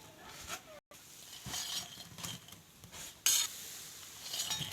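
Banana fritters sizzling in hot oil, with a metal spoon scraping and clinking against the pan. One sharp clink a little past three seconds in, and the sound cuts out for a moment just under a second in.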